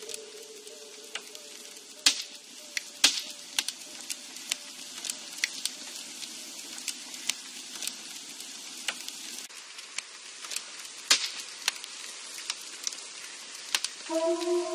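Sparse crackling with scattered sharp clicks over a faint held tone, which fades out about two-thirds of the way through; sustained musical notes come in near the end.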